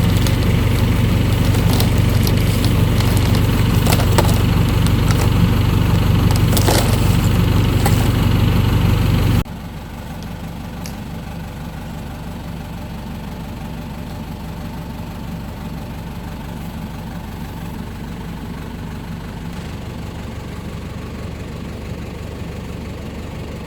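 New Holland tractor-loader-backhoe's engine running steadily, with a few faint knocks. About nine seconds in the sound drops suddenly to a quieter, steady engine hum.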